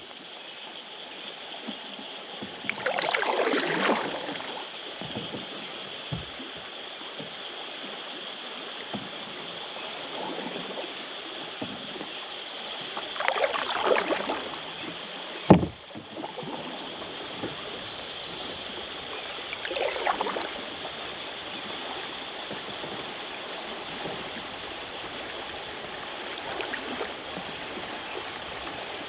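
Kayak paddle strokes dipping and splashing in river water over a steady wash of moving water and a constant high hum. Three louder strokes come several seconds apart, and a single sharp knock falls about halfway through.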